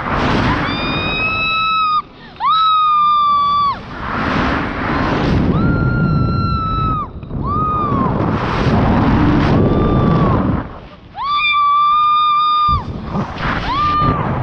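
A person screaming in excitement over rushing wind, in flight on a tandem paraglider. About seven high cries: the longer ones are held steady for a second or more, with a quick rise at the start and a drop at the end. Three shorter, fainter cries come between them.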